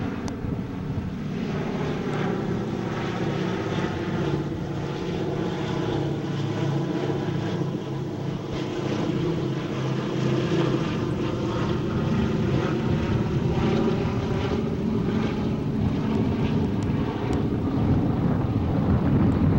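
Boeing B-17 Flying Fortress flying overhead, its four radial piston engines and propellers making a steady, throbbing drone that grows louder over the second half.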